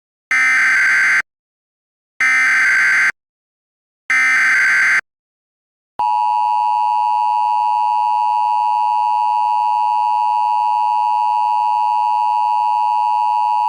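Emergency Alert System tones: three short bursts of SAME header data, each a rapid warble of two high tones, about two seconds apart, then about six seconds in the steady two-tone EAS attention signal starts and holds. This is the standard opening that announces an emergency broadcast message.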